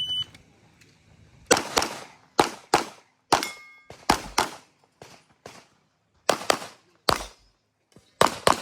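A shot timer's start beep, then a handgun firing about a dozen shots over some seven seconds, mostly in quick pairs. A brief ringing tone follows one shot about three and a half seconds in.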